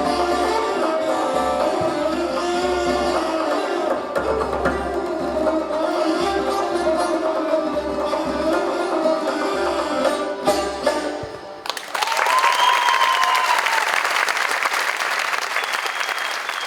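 Persian classical trio of tar, ney and tombak playing a melodic piece that ends abruptly about eleven seconds in, followed by audience applause.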